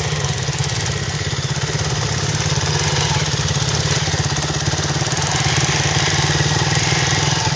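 Dirt bike engine running steadily with a fast, even beat and no revving.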